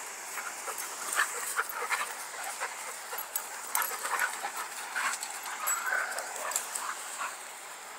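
Dogs tussling as an older dog corrects an over-excited young one: scattered clicks and shuffles, with a short whine about six seconds in.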